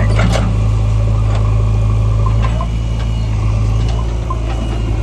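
Heavy diesel engine of a working backhoe loader site running steadily, with a short metallic clatter about a quarter second in and a slight change in the engine note about halfway through.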